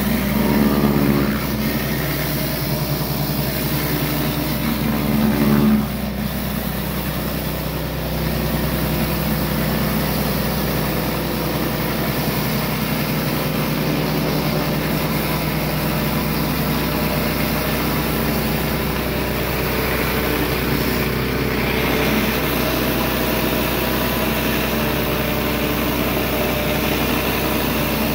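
Pressure washer running steadily while its spray jets work under a 15-inch surface cleaner pushed over concrete. The sound swells briefly near the start and again a little before six seconds in.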